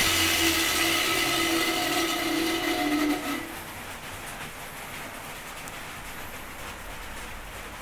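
Old electric drill, a German design made in Brazil, running as a makeshift lathe with a large aluminium plate on its spindle: a steady motor whine with an airy rush from the spinning plate, which drops slightly in pitch and stops about three seconds in. A faint steady hiss is left after it.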